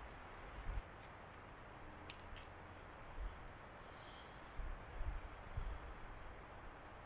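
Faint, high-pitched bird chirps repeating over a steady background hiss, with a few soft low thumps.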